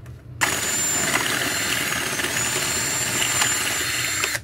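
Power drill with a metal bit drilling out the rivet that holds a motorcycle helmet's chin-strap fitting. The drill runs steadily with a high whine, starting about half a second in and stopping just before the end.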